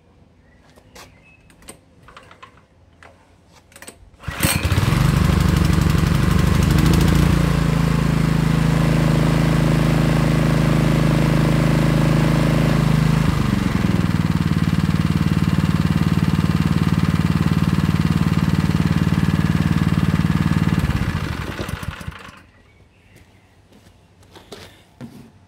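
A petrol pressure washer's small engine starting suddenly, about four seconds in, after a few faint clicks and knocks at the machine. It runs at a steady speed for about sixteen seconds, its note shifting once about halfway, then winds down and stops.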